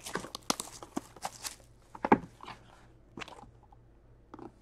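Plastic shrink-wrap crinkling as it is peeled off a small cardboard card box, dense for the first second and a half. Then a few scattered sharp clicks and taps as the box's cardboard flap is handled and opened.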